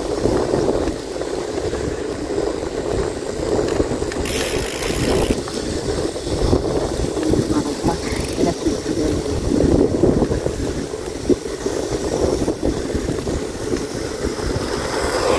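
Wind rumbling on the microphone and tyre noise of a bicycle being ridden, with a brief hiss about four seconds in.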